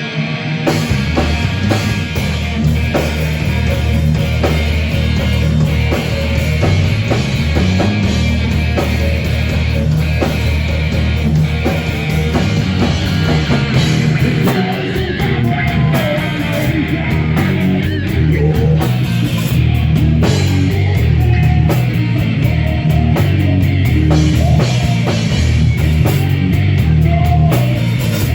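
Rock band playing loud heavy music, with guitar and a drum kit, continuously and without a break.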